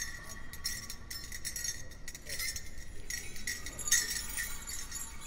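Small metal bells on a dancer's regalia jingling in irregular shakes as he moves about, with faint voices in the background.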